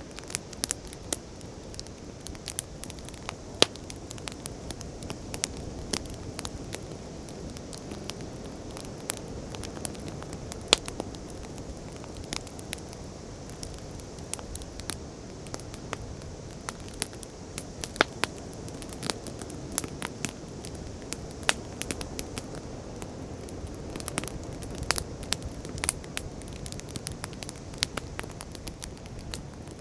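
Wood fire crackling: irregular sharp pops and snaps, a few much louder than the rest, over a steady low rushing background.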